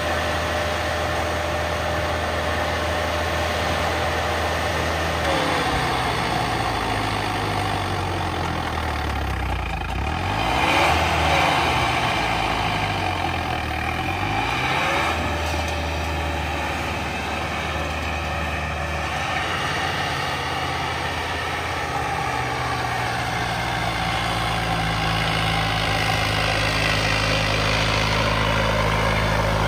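Farmtrac tractor's diesel engine running under load while pulling a tine cultivator through the soil. Its pitch dips and rises a few times in the middle, then holds steady.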